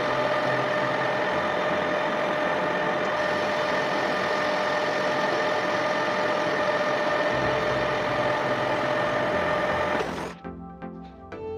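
Lathe running with a steady mechanical noise and a held whine. It cuts off suddenly about ten seconds in, and music follows.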